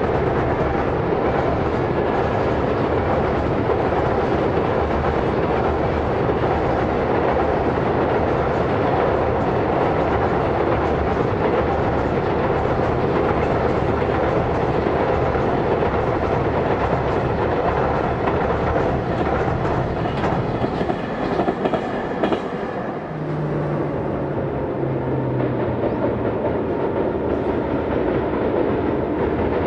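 Freight train of container wagons rolling across a railway bridge, its wheels clattering steadily over the rail joints. About 22 seconds in, the sound drops to a quieter train rumble with a low steady tone lasting a few seconds.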